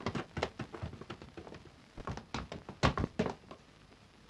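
Footsteps and thuds of people running and jumping over logs and wooden boards: a quick, irregular string of knocks, the loudest about three seconds in.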